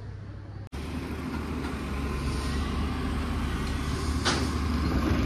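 Construction-site noise that starts abruptly under a second in: a steady low rumble of heavy machinery, growing louder, with a sharp knock about four seconds in.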